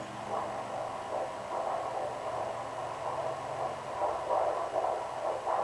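Fetal doppler monitor playing a pulsing, whooshing heartbeat through its speaker.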